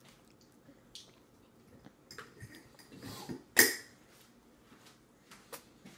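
A toddler eating orange segments: scattered short wet smacks and sucking sounds, the loudest a sharp smack about three and a half seconds in.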